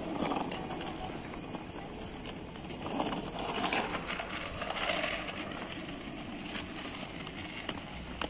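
Inline skate wheels rolling and scraping on a paved path, mixed with the quick footsteps of people jogging alongside.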